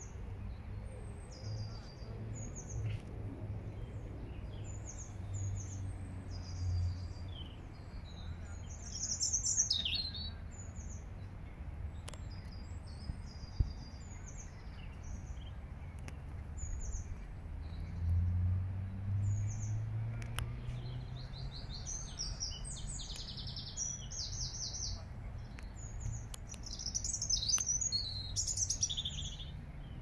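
Eurasian robin singing: short, high, thin phrases with pauses between them, and a few denser trilled phrases. A low rumble runs underneath.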